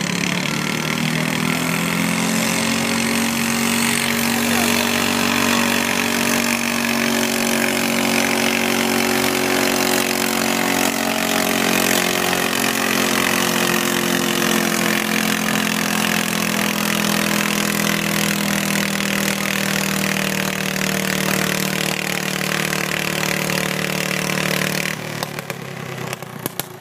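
Pulling garden tractor's engine at full throttle, dragging a weight-transfer sled. Its pitch rises at the start, then sags slowly as the sled's load builds, and the engine drops away about 25 seconds in as the pull ends.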